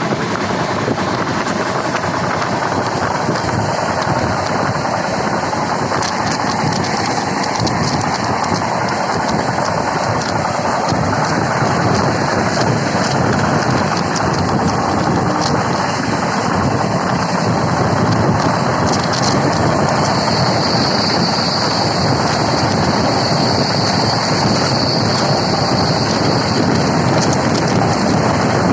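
Train running on the track: a steady, loud rumble and rattle of the wheels and cars, with a thin high whine from about twenty to twenty-seven seconds in.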